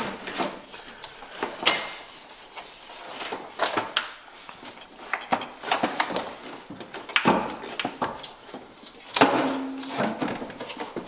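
Scattered clicks, clanks and knocks of hand tools and metal parts being handled during work under a car, irregular and uneven in loudness, with a brief low hum about nine seconds in.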